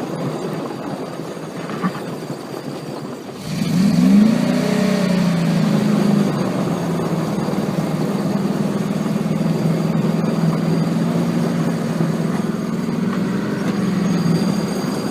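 Dodge pickup truck engine running, then revving up suddenly about three and a half seconds in and holding a steady pitch under load while towing a snowmobile, until it eases off near the end.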